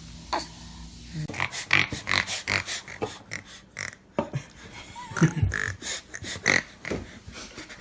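Baby making a quick string of short, funny noises with its breath and voice, a few a second, starting about a second in, with a short falling squeal about five seconds in.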